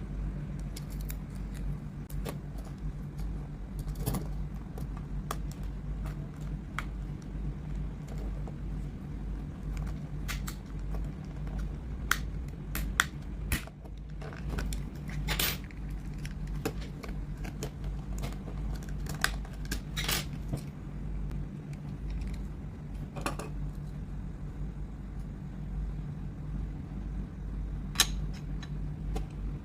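Scattered small clicks and light metallic taps, irregular and a few seconds apart, over a steady low electrical hum.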